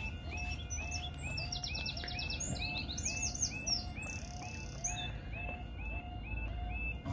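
Level crossing yodel alarm sounding: a short up-sweeping electronic warble repeating about three times a second while the barriers come down. A songbird sings a rapid trilled phrase over it in the middle.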